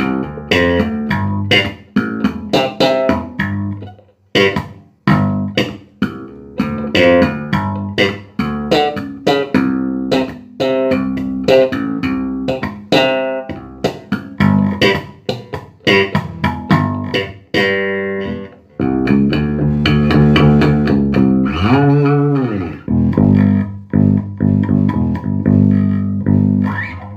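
Electric bass guitar played through an Ampeg SVT-450 bass amplifier: a long run of plucked notes, with a note sliding up and back down about 22 seconds in, then longer held notes. The amp has just been repaired for cutting out at random, with its gain pot replaced and its cold solder joints resoldered.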